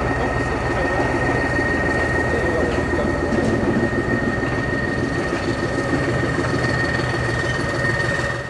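Class 14 0-6-0 diesel-hydraulic shunter D9516 running as it hauls a rake of passenger coaches past, with the coaches' wheels rolling on the track. A steady high whine sits over the rumble throughout.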